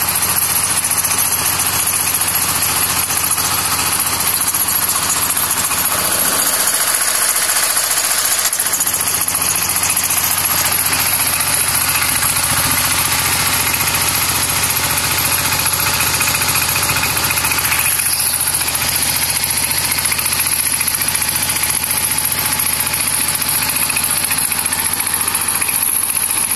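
Kirloskar MegaT 15 power tiller's single-cylinder diesel engine running steadily under load, belt-driving a grain processing machine.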